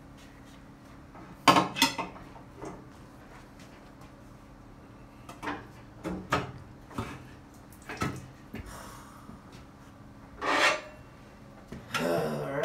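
Irregular metallic clinks and knocks from a tire and wheel being handled on a tire changer's turntable, the loudest about a second and a half in. Near the end, a rougher rattling scrape.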